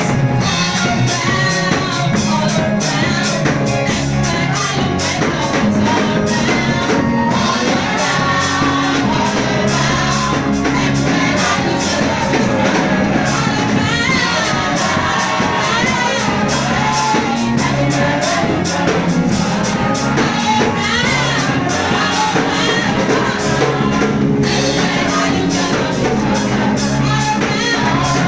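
Worship song: singing voices over a band with steady held bass notes, continuous and loud.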